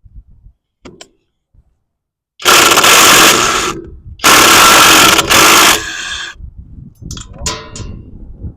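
Power tool run hard in two bursts of about a second and a half each, spinning out the two Torx bolts on a smart car's clutch release arm and bearing.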